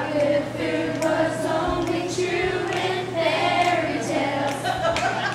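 A group of girls singing together unaccompanied, reading the words from lyric sheets.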